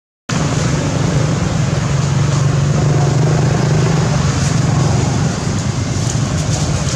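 Steady low rumble of an engine running nearby, a little stronger in the middle, after a brief dropout at the very start.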